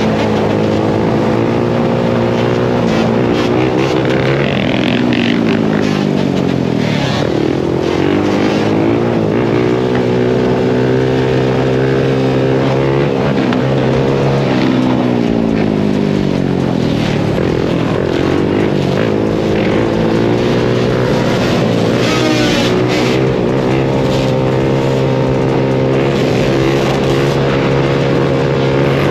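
Sport quad's engine from the rider's seat, running at road speed. Its pitch drops twice as the throttle is rolled off, about five and fifteen seconds in, and climbs again as it pulls back up through the revs.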